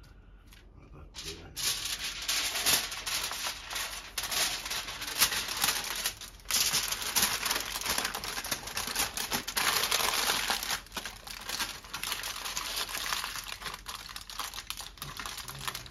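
Aluminium foil crinkling and crackling as gloved hands fold and crimp it around a whole fish, starting about a second and a half in and going on irregularly.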